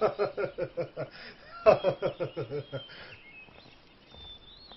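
A man laughing loudly in two quick runs of ha-ha-ha, followed by a few faint bird chirps near the end.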